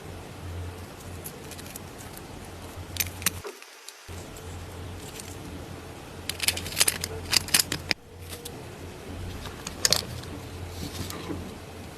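Light metallic clinks and jingles, like tools or small metal parts being handled, coming in short clusters over a steady low hum. The sound cuts out briefly between three and four seconds in.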